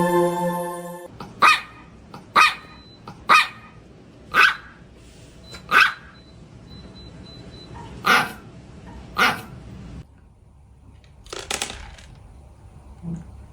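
Background music cuts off about a second in, then a dog barks seven single barks, roughly one a second, with a longer gap after the fifth. A fainter, rougher burst follows about eleven seconds in.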